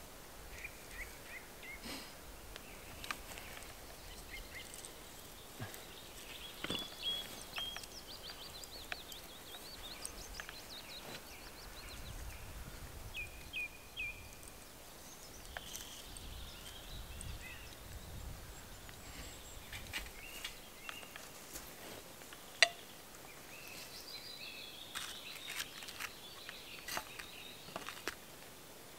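Songbirds calling and trilling in scattered short phrases, with small clicks and rustles as cord is handled and tied to wooden stakes. One sharp click about three-quarters of the way through is the loudest sound.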